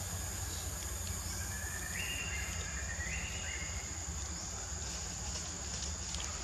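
Insects droning in a steady high-pitched tone, with a few short, stepped calls about two to three and a half seconds in.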